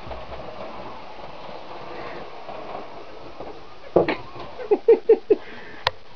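Model train running on its track with a steady whirr. About four seconds in come five or six short, loud, sharp sounds in quick succession, and a single click shortly after.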